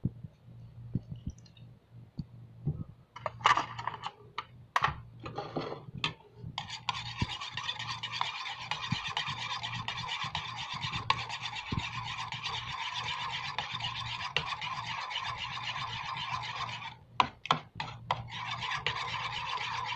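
Metal spoon stirring a thick yogurt, egg white and lemon mixture in a bowl, scraping against the bowl in a fast, continuous rhythm, with a short pause near the end. A few separate scrapes and taps come before the stirring gets going.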